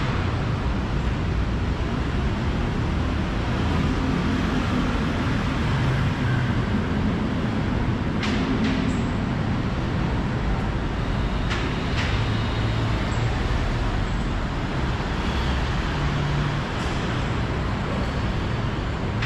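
Steady urban traffic ambience, a continuous low rumble of road noise, with a few short sharp clicks about eight and twelve seconds in.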